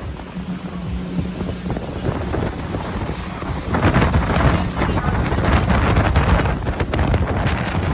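Wind buffeting the microphone over the steady drone of a motor yacht running underway; the wind gusts louder about four seconds in.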